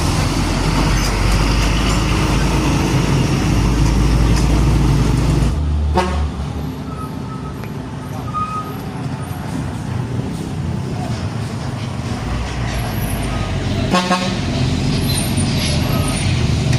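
Heavy diesel trucks passing in busy road traffic. A deep engine rumble is loud for the first five seconds or so and then drops away. Short horn toots sound at about six seconds and again about fourteen seconds in.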